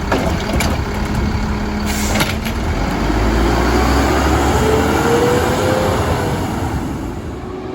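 Mack LEU garbage truck with a Labrie Helping Hand side loader: a few sharp knocks in the first two seconds, then the engine revs up, its pitch rising slowly for several seconds before easing off near the end.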